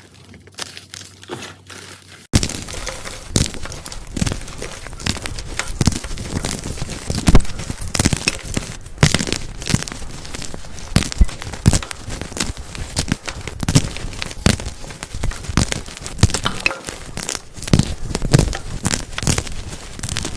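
Gym chalk being crushed and crumbled, a dense run of sharp crunching and crackling. It starts as sparse, quieter crunches and gets much louder suddenly about two seconds in.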